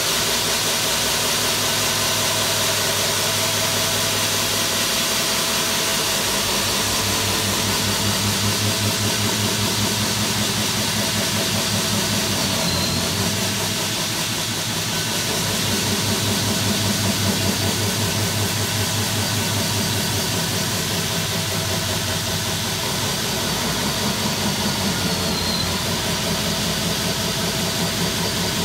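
Hilti core drill running steadily as its core bit cuts through a masonry wall: a continuous motor hum and whine with a slight pulsing, no pauses.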